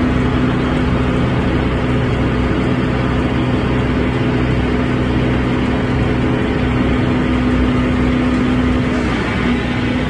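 Haybuster tub grinder running steadily and chopping straw bales: a loud, constant machine drone with a steady hum.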